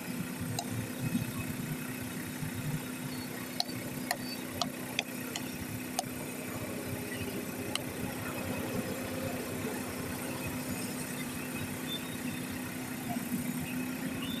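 Air compressor running steadily with a constant hum while a truck tyre's inner tube is inflated through an air hose, with a few light clicks in the middle.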